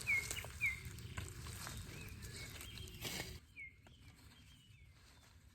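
Small birds chirping outdoors, short repeated calls over a rustling background with scattered clicks; the background noise drops away suddenly about three and a half seconds in, and a few chirps go on.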